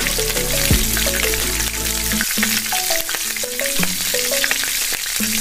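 Potato fries deep-frying in hot oil in a wok, a steady sizzle and crackle of many small pops. Soft background music runs underneath.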